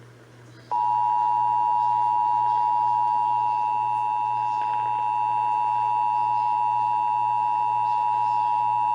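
Emergency Alert System attention signal: the steady two-tone 853 and 960 Hz alarm, starting under a second in and holding for about eight seconds before cutting off, heralding an alert. A faint low hum runs under it.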